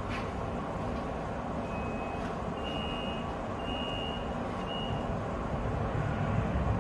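Tram running, heard from inside the car, with a few short, high electronic beeps from about two to five seconds in.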